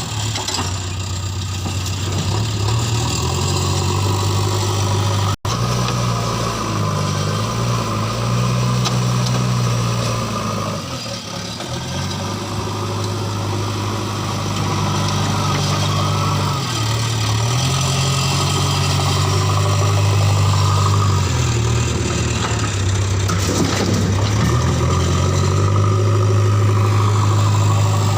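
JCB 3DX backhoe loader's diesel engine running under working load, its note repeatedly rising and falling as the hydraulics dig and load. There is a momentary break in the sound about five seconds in.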